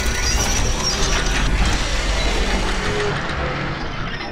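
Sound-effect of turning, ratcheting metal gears, a dense clatter of fine ticks over a deep rumble, as the soundtrack to an animated gear logo intro.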